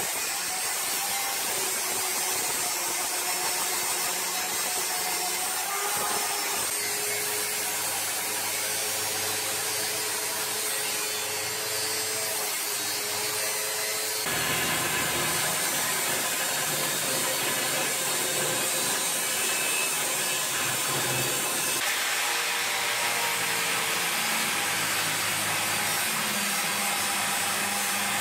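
Angle grinder cutting through the steel tubes of a car's roll cage: a loud, steady grinding with a wavering whine, changing abruptly about a fifth of the way in and again near halfway.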